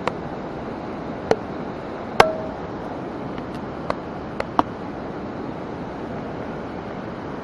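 Steady rush of flowing stream water, with about six short sharp clicks or taps in the first five seconds; the loudest, a little over two seconds in, rings briefly.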